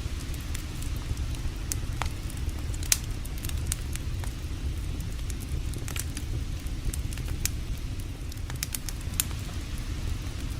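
Wood campfire crackling, with irregular sharp pops, the loudest about three seconds in and near the end, over a steady low rumble.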